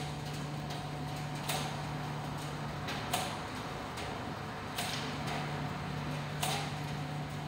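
Commercial ADC tumble dryers running: a steady hum with a short knock about every one and a half seconds as the drum turns.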